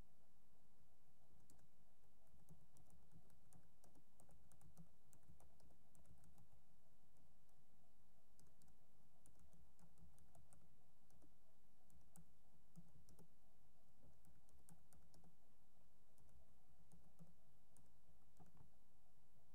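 Faint typing on a computer keyboard: irregular runs of keystroke clicks with short pauses between words and phrases, over a low steady hum.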